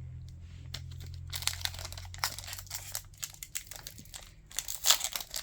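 Foil wrapper of a Pokémon Crown Zenith booster pack crinkling and tearing as it is ripped open, a quick run of crackles starting about a second in and loudest near the end.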